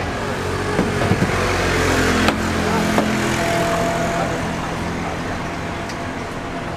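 Busy street-market ambience: a steady background din with faint voices, broken by a couple of sharp knocks about two and three seconds in.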